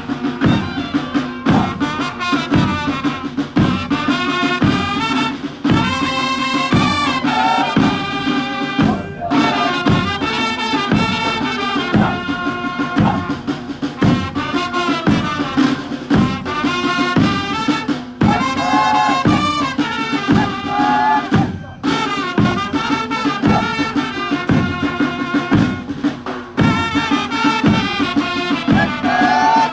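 Music with a steady drum beat and a melody over a held low drone.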